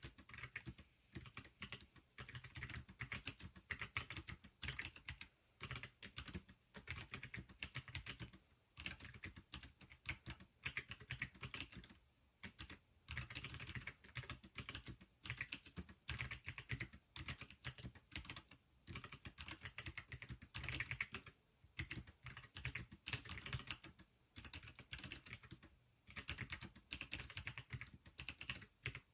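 Typing on a Pinky4 split ergonomic keyboard with mechanical switches in hot-swap sockets: fast runs of key clicks in bursts of a few seconds, broken by short pauses.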